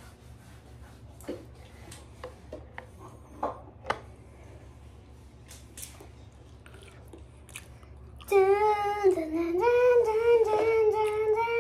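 Small plastic toys being handled, with a few faint clicks and taps, then about eight seconds in a child starts a loud wordless sung vocalisation, held and wavering in pitch.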